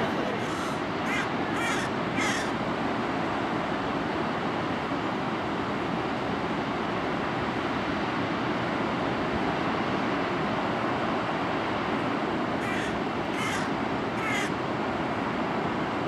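Rhine Falls waterfall rushing steadily. A bird calls four times in quick succession at the start and three times near the end.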